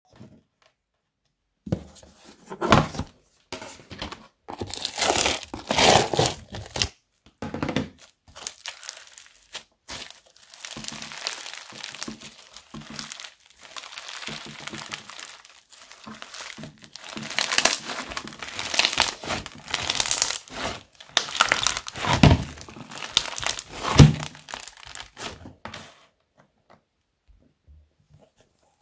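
Hands squeezing and pulling apart a lump of floam, slime packed with foam beads, the beads crackling and crunching in irregular bursts with a few sharper pops. The handling stops about two seconds before the end.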